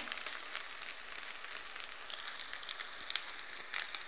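Mkhanfar pancake frying in a little oil in a nonstick pan: a steady sizzle with scattered small crackles and pops.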